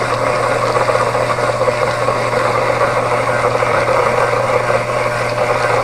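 Small live-steam model marine engine running steadily under steam, with a constant hiss of escaping steam.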